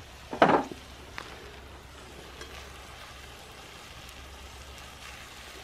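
Pork pieces frying in hot oil in a steel pan over a wood fire, a steady sizzle, with a short louder burst about half a second in.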